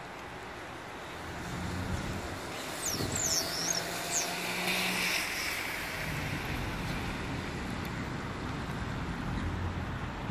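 Road traffic on a wet road: a vehicle's engine hum and tyre noise swell about a second and a half in and fade by about six seconds, with another passing near the end, over a steady noisy background. A few short high bird chirps come about three seconds in.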